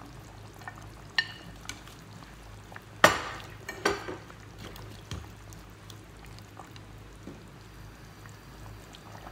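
Potato pieces tipped off a plate into a pot of simmering tomato stew, then a slotted spatula stirring and knocking against the pot: a few light clicks, then two sharp knocks about three and four seconds in.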